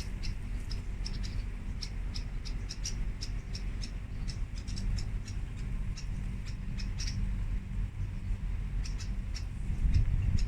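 Short, high chirps from small garden creatures at an irregular pace of a few a second, over a steady low hum that grows louder near the end.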